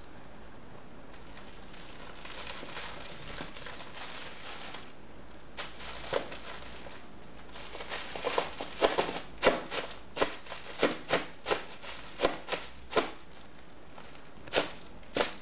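A cat wrestling and kicking a plush toy: soft rubbing and rustling, then a fast run of about a dozen short, sharp scratchy sounds starting about eight seconds in, and two more near the end.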